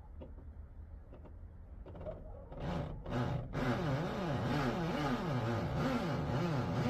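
Power drill boring a hole into concrete, starting about two and a half seconds in. The motor speed rises and falls about twice a second as the drill is run slowly and under control.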